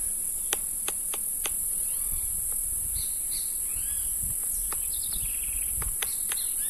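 A steady high-pitched drone of insects, with several birds calling in short arched chirps and a few sharp clicks scattered through.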